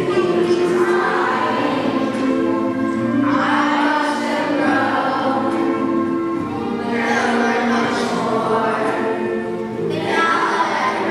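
Children's choir singing, with long held notes.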